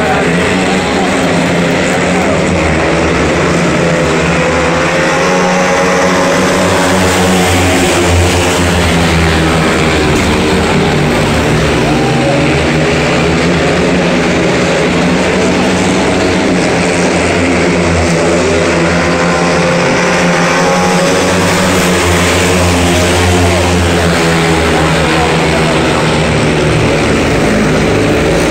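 Speedway motorcycles racing in a pack: their 500 cc single-cylinder methanol engines run at full throttle. The engine note rises and falls as the bikes pass and work through the bends.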